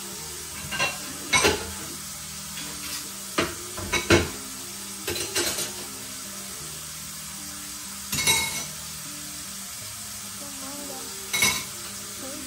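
Dishes and cutlery clinking and clattering in a kitchen sink as they are washed by hand: a series of short, separate clatters, the loudest about a second and a half in and around four seconds in.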